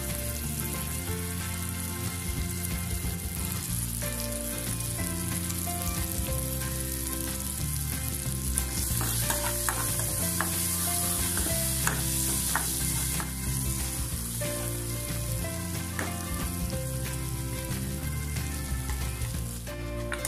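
Onion, tomato, green chillies and whole spices sautéing in oil in an aluminium kadai: a steady sizzle, with a steel spoon stirring and now and then knocking and scraping against the pan.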